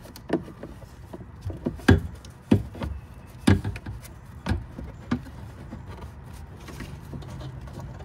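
Irregular hard knocks and clunks of a plastic pedestrian-warning speaker housing being wiggled and pulled against its metal mounting bracket, about six in the first five seconds, then quieter handling and rustling.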